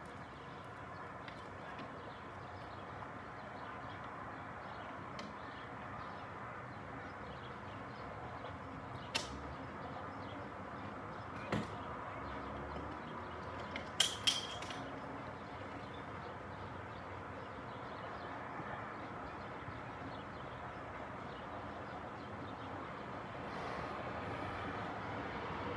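Steady outdoor ambience of distant traffic and city hum across the water, with a few short, sharp sounds near the middle.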